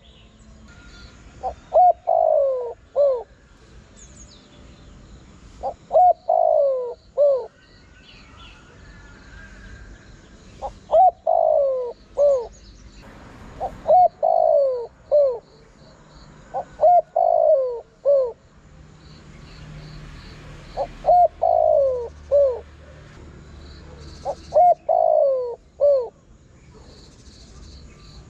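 Spotted dove cooing: seven phrases of a few short coos that end in a longer falling note, one every few seconds. Faint high-pitched chirping runs underneath.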